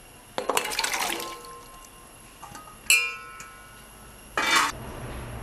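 Cut pieces of elephant foot yam and raw plantain tipped from a steel bowl clatter and splash into a steel pot of water, starting about half a second in. About three seconds in, steel strikes steel with a sharp ringing clink, and a second short burst of clatter and splash follows near the end.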